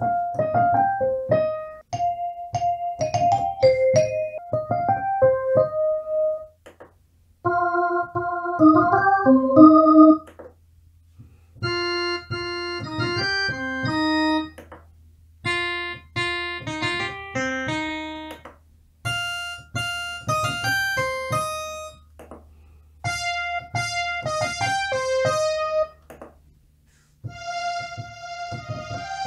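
Alesis Recital Pro digital piano played through its built-in speakers: the same short melody about seven times with brief pauses between, each time in a different built-in voice, from the plain piano to brighter, more bell-like tones.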